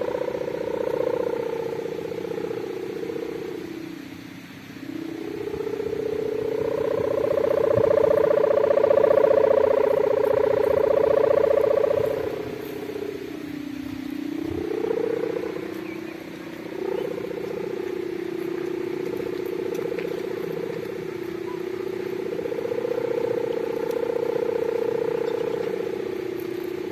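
Kite hummer (sendaren) droning in the wind with a deep, engine-like buzz of the 'bulldozer' kind. Its pitch and loudness rise and fall with the gusts, sagging almost away about four seconds in and again near the middle before swelling back.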